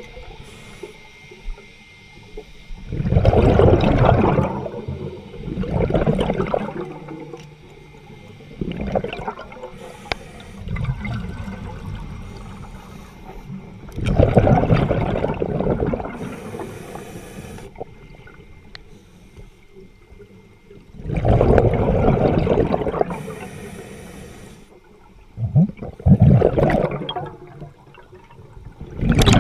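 A scuba diver's exhaled air bubbling out in loud bursts every few seconds, heard underwater, with short hisses between some of the bursts.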